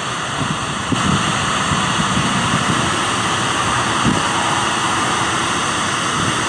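Steady static hiss from a ghost-box app on a smartphone, a continuous rush of noise that grows a little louder about a second in, with faint choppy fragments underneath.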